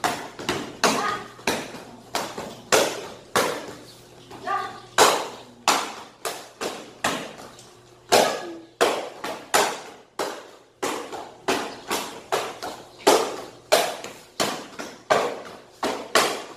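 Taekwondo kicks slapping against handheld paddle targets in a fast, steady series, nearly two a second, each a sharp smack with a short echo.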